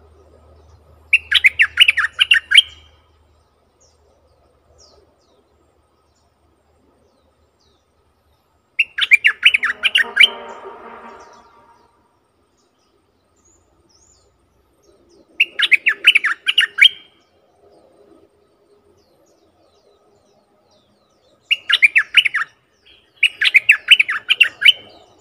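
A bulbul (merbah lekir) singing its lure song: five short phrases of quick bubbly notes, each about a second and a half long, spaced several seconds apart, the last two close together.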